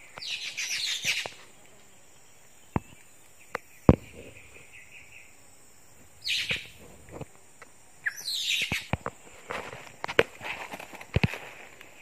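Harsh, rasping calls of drongos in three bursts: near the start, about six seconds in and about eight seconds in. A few sharp twig snaps fall in between.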